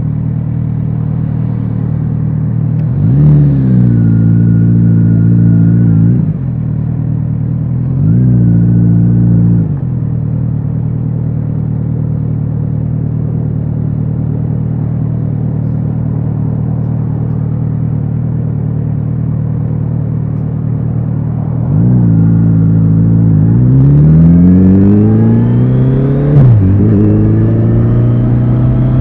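Kawasaki Z900RS inline-four motorcycle engine and exhaust under way. The revs rise and fall twice in the first ten seconds, then run steady. From about three-quarters of the way through, the engine accelerates hard in one long rising sweep, with a sudden drop at a gear change, and the revs climb again.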